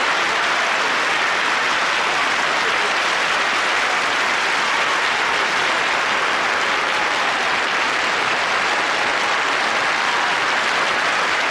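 Studio audience applauding steadily throughout, with no break.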